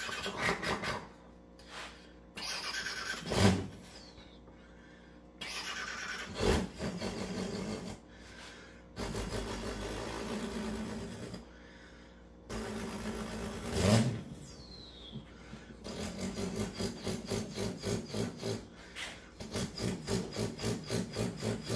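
A man imitating a Cummins diesel truck engine with his mouth. First comes a series of short rasping cranking bursts, two of them ending in a loud pop. From about two-thirds of the way in, a steady rhythmic chugging idle follows at around three to four beats a second.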